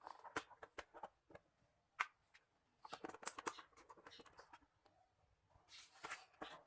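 Faint handling sounds: irregular plastic clicks and scrapes as a hand fits an AA battery into a wall clock's battery compartment and moves the plastic clock case, with one sharper click about two seconds in and a short rustle near the end.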